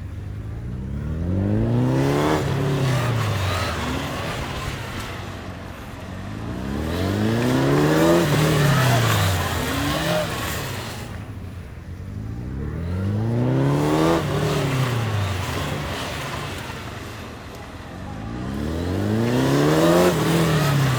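Police motorcycle engines accelerating and easing off in four repeated swells about six seconds apart, the pitch rising and then falling with each swell as the bikes ride the drill pattern.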